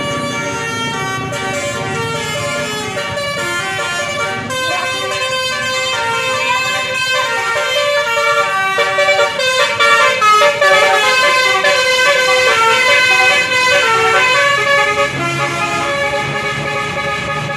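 Basuri telolet bus horn playing a tune: a long run of musical horn notes, several tones sounding together and stepping up and down in pitch, loudest about ten seconds in.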